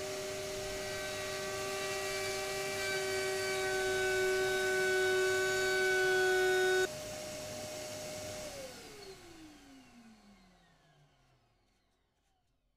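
Raitool 800 W trim router running with a 45° chamfer bit, cutting the edge of birch plywood; its steady whine grows louder over the first seven seconds. About seven seconds in the sound drops suddenly, and a second and a half later the motor is switched off and winds down in a falling whine that fades out near the end.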